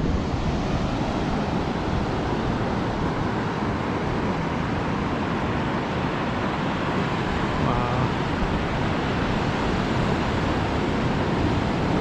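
Steady rush of Pacific Ocean surf breaking along the beach, with wind rumbling on the microphone.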